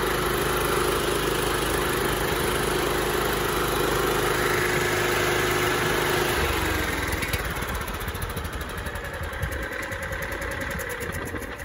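Freshly refurbished Kohler Command 17.5 hp lawn tractor engine running steadily on a test stand. About six or seven seconds in it is shut off, and its pitch falls as it winds down to a stop.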